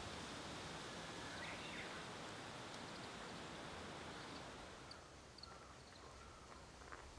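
Steady hiss of wind through a large tree's leaves, with a faint bird chirp about a second and a half in; the rustling eases off about five seconds in.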